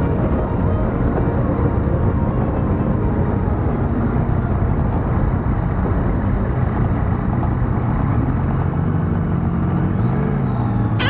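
Motorcycle engine running at steady road speed, under heavy wind noise on the bike-mounted camera's microphone.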